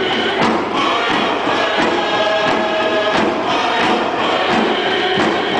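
A group of singers chanting a dance song in unison over repeated hand-drum beats, with a large crowd around them.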